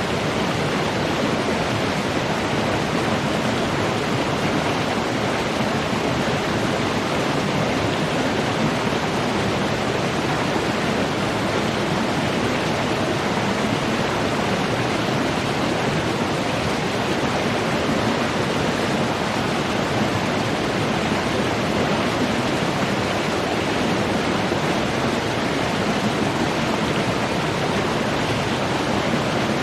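Running water rushing steadily, an even, unbroken sound with no splashes or changes.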